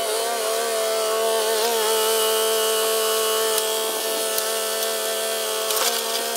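Yanmar B22 mini excavator running under load as it climbs onto a truck, giving a steady, high mechanical whine with a slight wobble in pitch.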